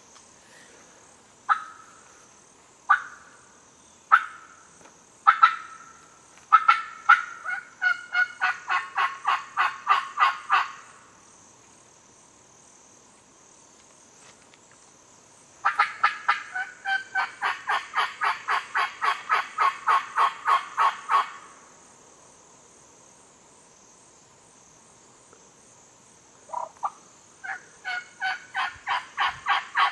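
Crystal pot turkey call run in hen yelps to strike a gobbler: a few single sharp yelps, then three long fast runs of about five notes a second, with pauses between.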